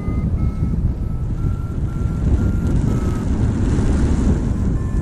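An engine running with a steady, heavy roar and a faint thin whine that drifts slowly upward in pitch.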